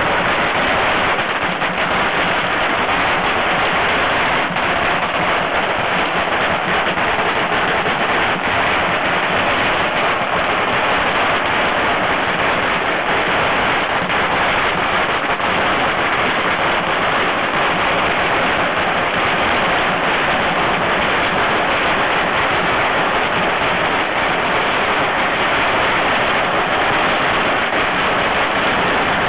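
A long string of firecrackers going off in a dense, continuous crackle.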